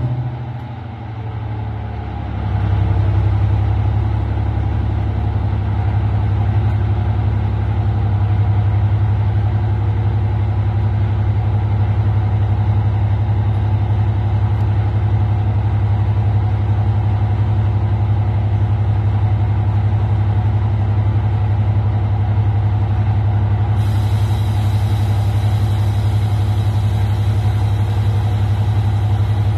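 British Rail Class 55 Deltic locomotive's Napier Deltic two-stroke opposed-piston diesel engines idling steadily just after start-up. The engine sound dips briefly, then grows louder about two and a half seconds in and settles into an even, low, throbbing idle; a high hiss joins near the end.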